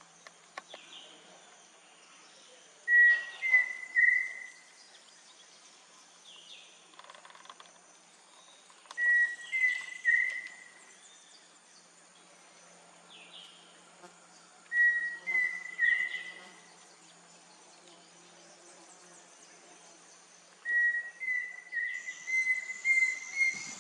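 Pheasant cuckoo singing: four whistled phrases about six seconds apart, each a few clear notes at much the same pitch, the last one longer with a run of slightly rising notes. A faint steady insect hum sits underneath.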